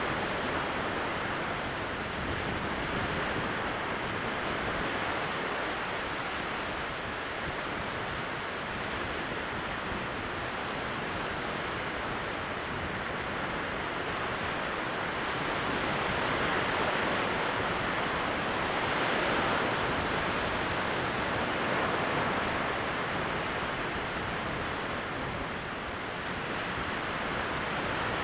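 Calm sea at very low tide: small waves breaking along the far water's edge beyond wet sand flats, giving a steady wash of surf that swells slightly twice past the middle.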